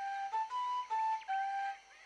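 A flute-like pipe playing a quick tune of short, clear held notes that step up and down, stopping near the end.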